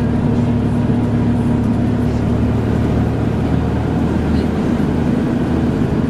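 Volvo B7TL bus's diesel engine and cooling fan running, heard from inside the moving bus, with a steady whine over the engine drone that weakens and breaks up about two and a half seconds in.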